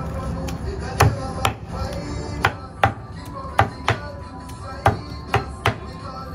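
Cleaver chopping jerk pork on a wooden stump block: about nine sharp, irregular chops, the first about a second in.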